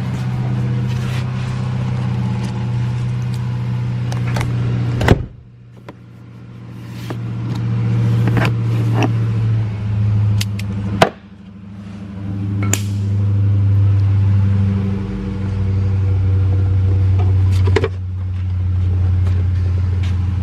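A motor running with a steady low hum and sharp clicks. It cuts out about five seconds in and again around eleven seconds, each time building back up over a second or two.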